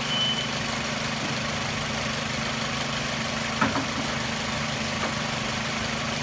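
2004 Toyota RAV4 engine idling steadily with the air conditioning compressor running, after an AC refrigerant recharge. A brief high squeak near the start and a single sharp click about three and a half seconds in.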